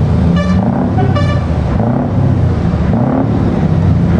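Scania 164L 480 V8 truck engine rumbling as the truck pulls slowly away under load. A horn gives two short toots, about half a second and just over a second in.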